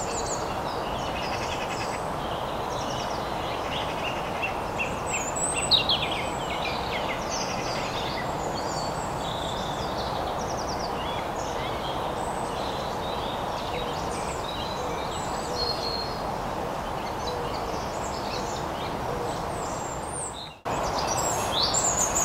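Many small songbirds singing and calling over a steady drone of distant motorway traffic.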